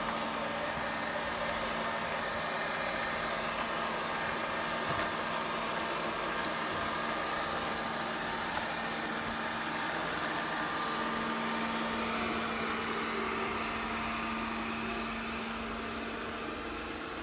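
Robot vacuum cleaner running: a steady motor whir with a low hum, a few faint clicks, easing slightly near the end.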